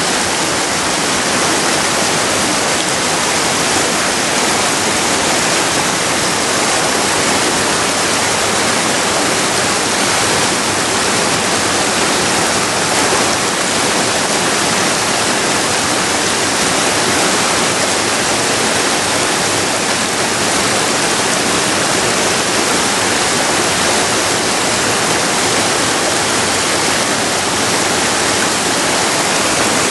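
Steady, unbroken rush of river water pouring over rocky rapids.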